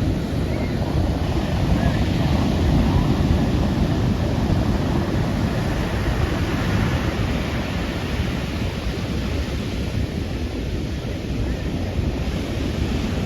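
Ocean surf washing on the beach, a steady rush of breaking waves, with wind buffeting the microphone.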